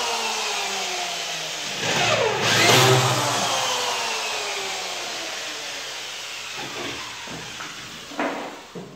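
An electric power tool's motor briefly run up about two seconds in, then spinning down with a slowly falling whine over several seconds. A few light knocks come near the end.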